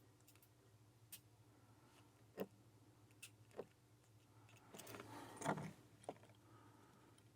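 Faint, sparse clicks of a pick and tension tool working the pin tumblers of a Burg Wächter Alutitan aluminium padlock, with a short run of scratchy clicks about five seconds in.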